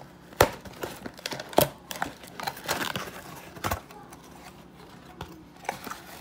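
Hands tearing open and rustling a USPS Priority Mail cardboard box, crinkling packaging with several sharp cardboard snaps, then quieter handling as a smaller box inside is pulled out.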